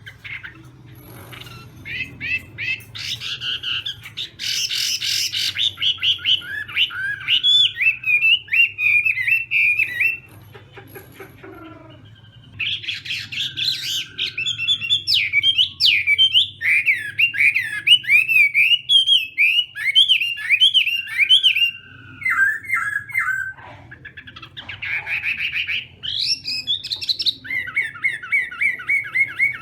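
Chinese hwamei (melodious laughing thrush) singing loud, long phrases of rapid repeated whistled notes that jump up and down in pitch, broken by a pause about ten seconds in and a shorter one near the end.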